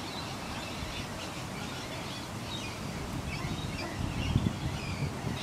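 Birds chirping, short calls scattered throughout over steady background noise, with a brief low rumble about four seconds in.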